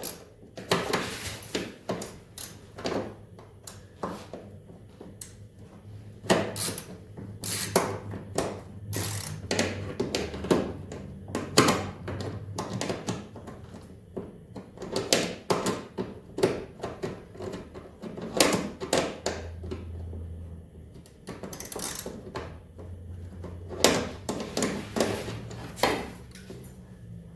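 Hand tools knocking and clinking irregularly against the metal parts of a snowmobile engine as it is being unbolted for removal.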